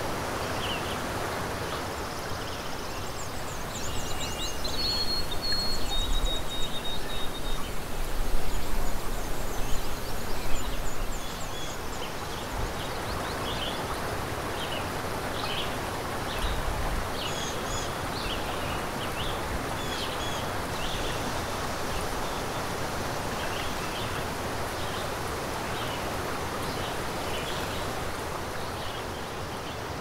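Marsh and pond ambience: a steady rushing hiss with small birds chirping and whistling throughout. A louder stretch with a low rumble runs from about 4 to 11 seconds in.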